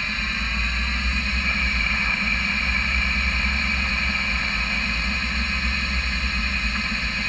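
Tormach CNC lathe cutting a 12L14 steel bar under flood coolant: a steady high spindle whine over the hiss of the coolant spray and a low hum.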